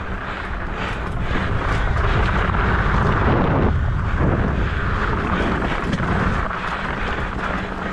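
Trek Stache mountain bike rolling along a rocky desert dirt trail: a steady rush of wind on the camera microphone mixed with tyre and frame rumble and rattle, a little louder through the middle.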